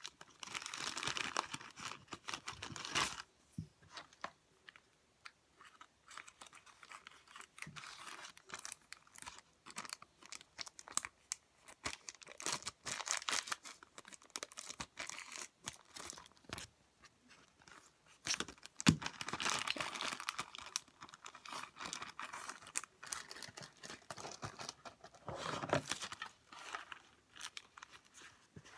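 Packaging and plastic containers being handled: rustling and crinkling in irregular bursts, with scattered clicks and knocks. A sharp knock about two-thirds of the way through is the loudest sound.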